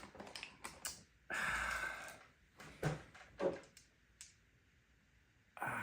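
A long, breathy sigh about a second and a half in, among a few light clicks and knocks.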